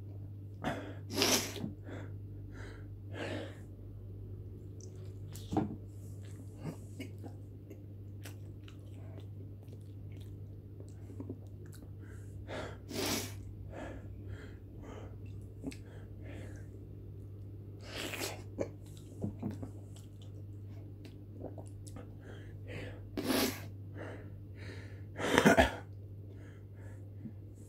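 A man sniffling and blowing out sharp breaths through his nose, a string of short noisy bursts spread through, the loudest near the end, his nose running from the burn of hot chili peppers. A steady low hum runs underneath.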